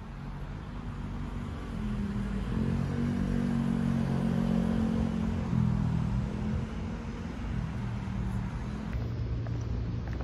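A road vehicle's engine running with a steady low rumble. It grows louder over the first couple of seconds and then holds.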